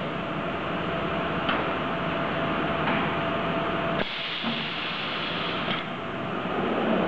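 Hexagon HG-1004S 10 kW high-frequency welding machine running: a steady mechanical hiss with a thin steady tone that stops with a sharp click about four seconds in, and a few fainter clicks.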